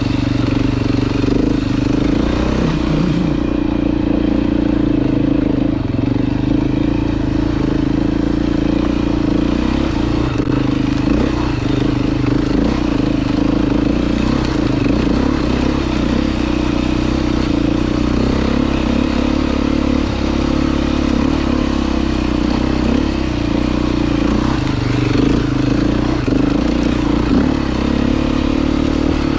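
Dirt bike engine running at a fairly steady speed, with small rises and falls in pitch and some light clatter.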